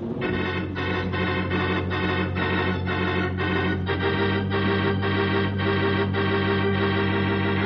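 Organ music bridge of dramatic sustained chords, pulsing about three times a second, with the bass note changing about halfway through; it marks a scene change after a cliffhanger moment.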